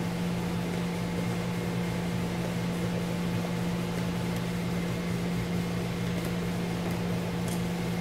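Steady low mechanical hum, like a fan running, with a few faint small clicks.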